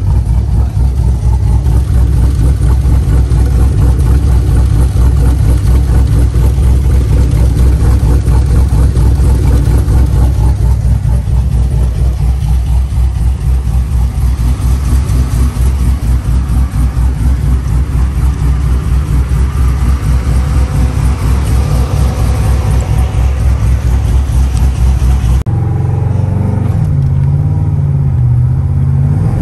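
Twin-turbo Chevrolet Silverado idling, heard right at the tailpipe of its new 3-inch exhaust with two turbine mufflers: a deep, steady, even rumble. About 25 seconds in it cuts to a smoother engine drone heard from inside the cab while driving.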